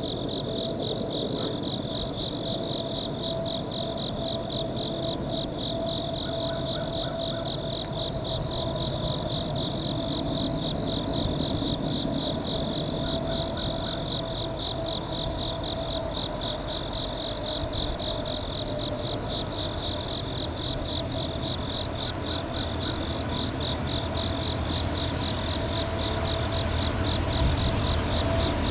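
Steady late-summer insect chorus, a fast pulsing high trill with other steady buzzing tones under it. In the last few seconds a low rumble builds as a Norfolk Southern freight train's diesel locomotives come closer.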